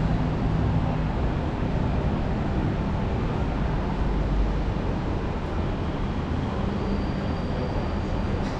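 Steady low rumble of city background noise, vehicles running, with a faint high whine that comes in about seven seconds in.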